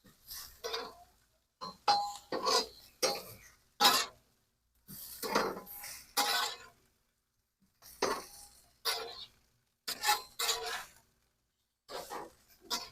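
Metal grill spatula clinking and scraping against the grill grates as burger patties are flipped and moved. The short clanks and scrapes come about once a second, some ringing briefly.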